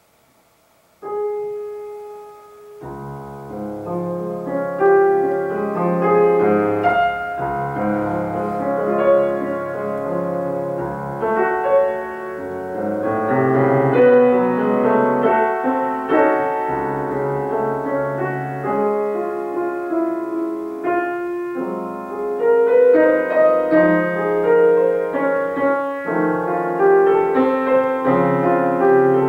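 Solo grand piano beginning a classical piece: after a brief hush a single held note sounds about a second in, then from about three seconds in a flowing passage of many notes spread over the low and middle range.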